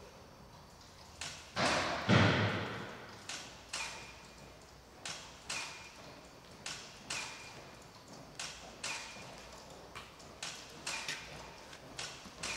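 Footsteps on a hard floor in a reverberant hall: short sharp heel clicks, mostly in pairs about half a second apart with pauses between, each with a brief ring. One much louder, longer thud comes about two seconds in.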